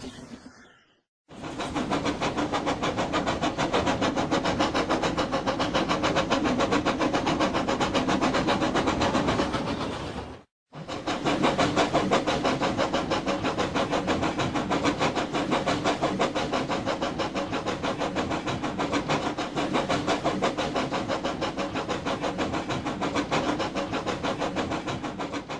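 Steam locomotive running, with a rapid, even pulsing beat. It plays as two separate sound-effect clips with a short break about ten seconds in.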